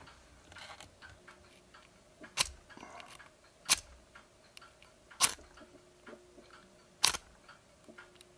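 Oil match (permanent match) rod struck four times against the flint striker on its body, each strike a sharp scratching click about a second and a half apart. It throws sparks but will not light, because its wick has burned away.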